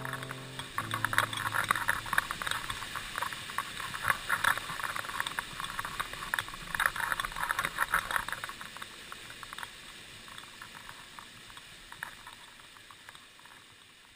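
Small waterfall splashing into a rock pool: a dense crackling patter of falling water, fading away over the last several seconds. Piano music ends about a second in.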